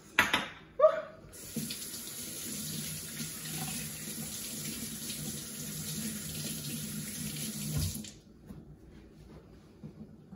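Two short loud sounds in the first second, then a kitchen faucet running steadily into the sink while hands are rinsed under it, shut off after about six and a half seconds.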